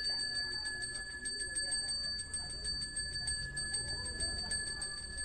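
Balinese priest's hand bell (genta) ringing continuously, its clapper striking in a fast, even rhythm that keeps the high bright tones sounding, as is done to accompany prayer.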